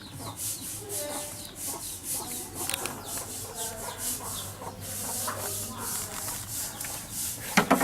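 A blade scraping and shaving at the husk of a fresh coconut to open it, in quick repeated strokes.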